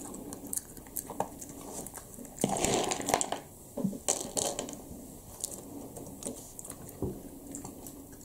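Small pieces of dry dog kibble clicking on a plastic-sheet-covered table as they are put down and moved about, with crinkling of the plastic; a longer rustle comes about two and a half seconds in.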